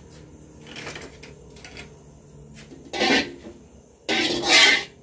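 Slotted metal spatula scraping and knocking around an aluminium wok holding a little heating oil, in a few separate strokes, with the two loudest around three seconds in and between four and five seconds in.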